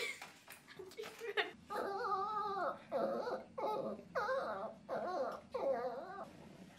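Small dog whining over and over, about one drawn-out, wavering whine a second, while begging up at someone's lap.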